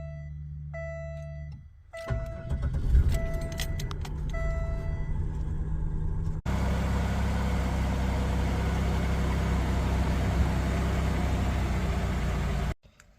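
1998 Buick LeSabre's 3.8-litre V6 being cold-started: a low hum and an electronic chime repeating about once a second, then the engine catches about two seconds in and keeps running. About halfway through the sound cuts abruptly to the engine idling steadily.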